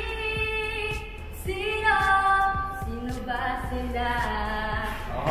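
A young woman singing a slow song alone, unaccompanied, holding long notes that step between a few pitches.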